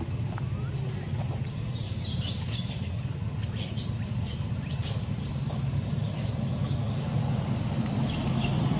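Outdoor ambience: a steady low rumble, like distant traffic, under scattered short high chirps and squeaks of birds.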